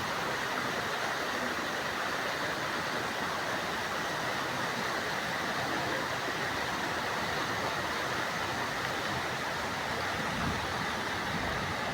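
Heavy rain pouring down as a steady rushing hiss, with a brief low rumble about ten seconds in.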